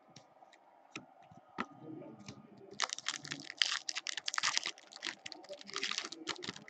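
A few light clicks of cards being handled, then from about three seconds in the foil wrapper of a hockey trading-card pack crinkling and tearing as it is pulled open.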